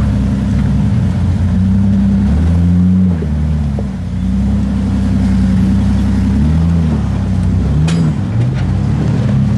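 Jeep Wrangler's engine working at low speed while rock crawling, its pitch rising and falling over and over as the throttle is blipped. A couple of short sharp knocks come near the end.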